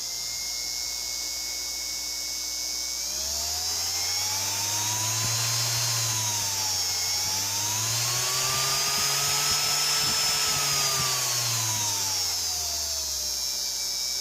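Universal brushed electric motor running on a PWM speed controller, with a steady high-pitched whine over it. Its pitch rises about three seconds in, dips around seven seconds, climbs to its highest around ten seconds, then falls back toward the end as the speed is turned up and down.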